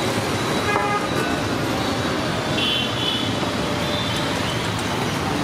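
Steady road traffic noise, with a brief high-pitched horn beep about two and a half seconds in.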